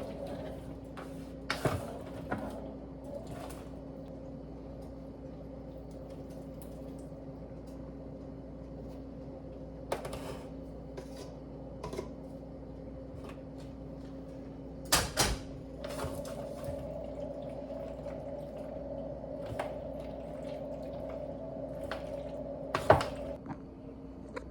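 Macaroni and cheese being stirred in a pot: soft, wet squishing of the sauced noodles, broken by a few sharp knocks of the spoon against the pot, the loudest about fifteen and twenty-three seconds in, over a steady low hum.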